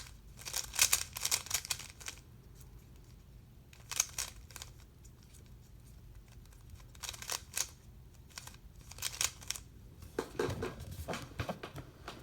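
Plastic Rubik's cube being turned by hand: bursts of quick clicking turns separated by short pauses.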